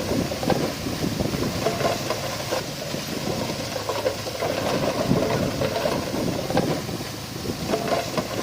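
Heavy diesel earthmoving machinery running steadily, with many short irregular knocks over the engine noise.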